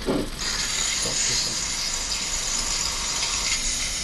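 Home espresso machine hissing steam steadily, starting suddenly about half a second in, just after its dial has been turned to steam while it heats up for milk frothing.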